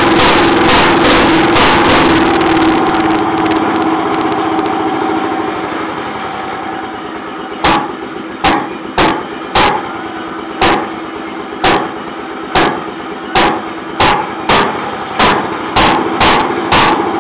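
Early 1920s–30s Jacobsen two-stroke engine running steadily, then dropping off and skipping, firing only in single sharp pops about every half second to a second. The pops come closer together near the end as it picks up again.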